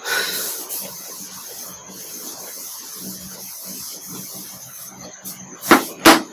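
Whiteboard being wiped clean with an eraser: a steady rubbing hiss. Near the end come two sharp knocks close together.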